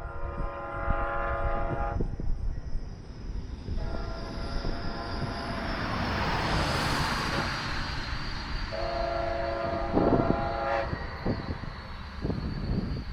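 Horn of a Brightline passenger train sounding three long blasts as it approaches a grade crossing, over the rumble and rising rush of the train passing on the rails, loudest about halfway through.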